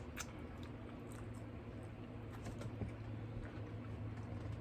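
Faint, scattered small clicks and taps from eating and handling food at the table, over a low steady hum.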